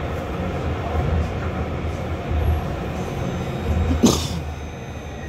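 Interior running noise of a Luas Class 3000 tram in motion: a steady low rumble from the wheels and running gear, with a single sharp clunk about four seconds in.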